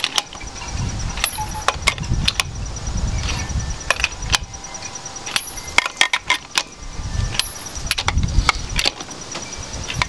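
Metal lug wrench socket clinking on chrome lug nuts of a mag wheel as the nuts are fitted and turned: irregular sharp metallic clicks and clanks, a few with a short high ring, over low handling rumble.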